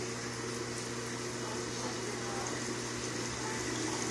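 Saltwater aquarium equipment running: a steady pump hum under an even hiss of moving water.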